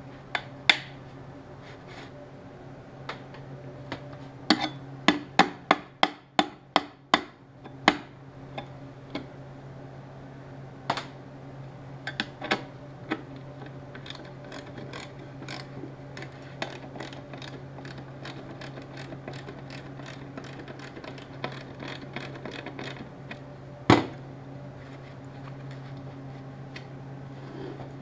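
Hand tools working the nuts and bolts off a radio mounting bracket: a run of sharp metallic clicks and knocks, then a long stretch of quick, even clicking, and one loud knock near the end. A steady low hum runs underneath.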